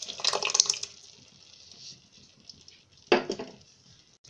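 Cream and khoya being added to mashed cauliflower in a pot and mixed in with a spoon: wet squelching with spoon clinks, in a burst during the first second and again about three seconds in.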